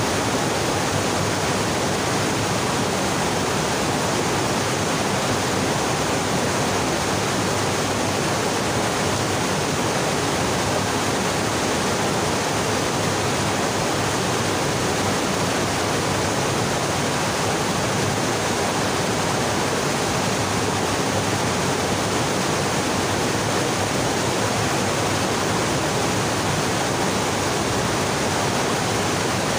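Fast-flowing mountain stream rushing over boulders: a steady, unbroken rush of water.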